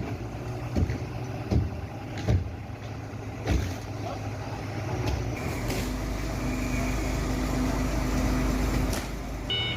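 A 10-ton forklift's engine running steadily, with a series of sharp knocks about every second in the first few seconds. About halfway through, the engine works harder with a deeper, louder rumble. Reversing beeps start right at the end.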